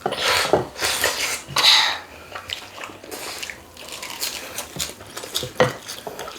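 Eating at the table: cutlery clinking and scraping against bowls and plates, in a row of short strokes that are loudest in the first two seconds.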